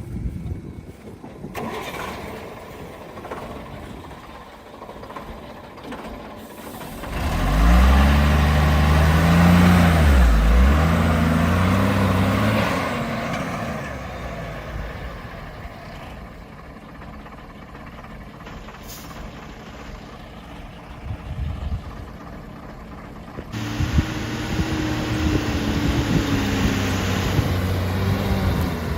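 Heavy diesel engine running under load. It revs up loudly about seven seconds in, its pitch dipping and rising again, then eases back to a lower run. About twenty-four seconds in it picks up to a steady, louder pitch.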